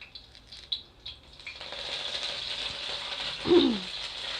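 Curry leaves going into hot oil in a pan: after a few light clicks, a steady sizzle starts about a second and a half in and keeps going. A short, falling voice-like sound cuts in once, about three and a half seconds in.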